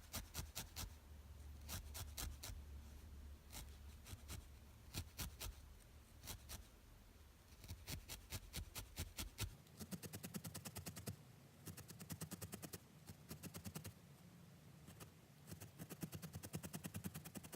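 Felting needle stabbing repeatedly into wool roving, a series of light pokes, irregular at first and then coming faster and more evenly from about halfway through.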